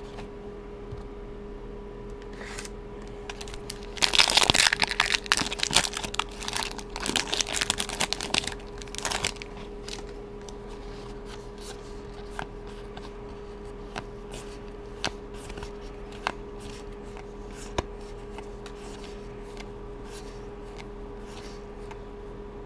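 Foil booster-pack wrapper crinkling and tearing open, loudest for about five seconds starting around four seconds in. After that come scattered faint clicks and slides of trading cards being handled and sorted.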